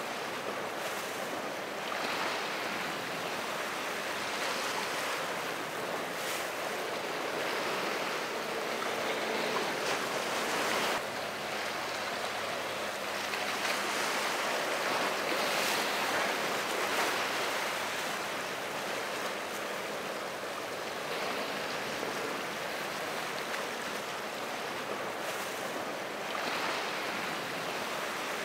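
Waves breaking and washing in a rough ocean inlet, with wind on the microphone; the rush of water rises and falls in several surges.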